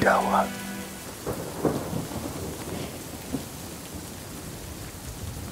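Wind and rain on the microphone: a steady rushing hiss, with a few short gusts of rumble in the first two seconds. A brief swooping sound opens it.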